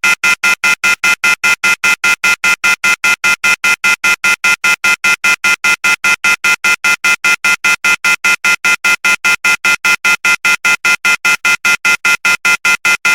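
Electronic phone tone beeping rapidly and without a break, about five or six identical high-pitched beeps a second.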